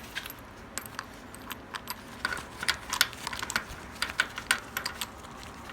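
Irregular light metallic clicks and taps, several a second, from small parts being handled and fitted on an old motorcycle.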